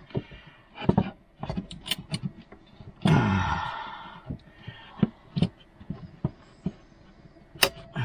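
Saw-backed camp knife working at a wooden board to break it free: scattered irregular knocks and clicks of blade and wood, with one longer, louder creak about three seconds in that fades over a second.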